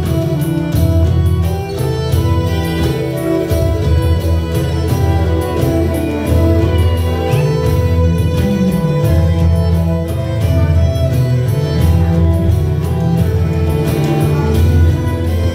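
Belly dance music with a strong bass and a steady percussion beat, played over loudspeakers.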